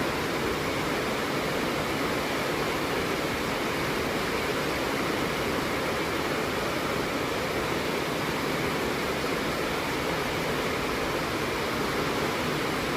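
Rain falling steadily, an even rushing noise of water with no breaks or changes.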